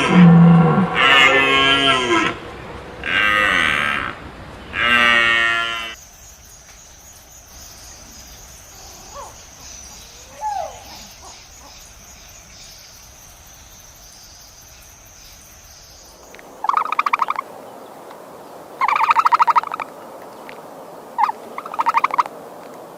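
A cow mooing four times in quick succession, each a loud pitched call. Then a quieter stretch with a faint steady high tone, and near the end several short, pulsing high-pitched animal calls.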